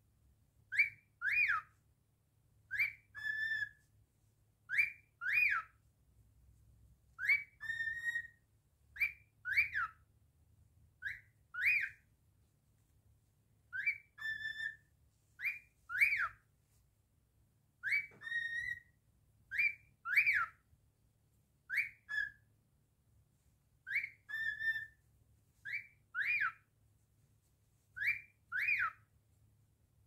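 A male grey cockatiel whistling the same short two-note phrase over and over, about one every one to two seconds: a rising note, then either a quick glide up and back down or a flat, buzzier note.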